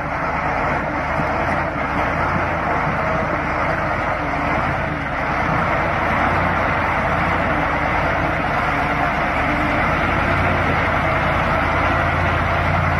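KamAZ truck's V8 diesel engine running steadily under load as the truck drives through water lying over river ice, with a continuous wash of churned water.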